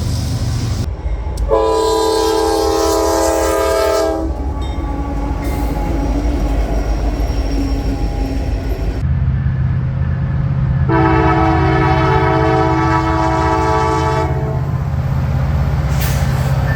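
Locomotive air horn sounding two long blasts, a chord of several steady notes, the first about two and a half seconds long and the second about three and a half, over the steady low rumble of the train.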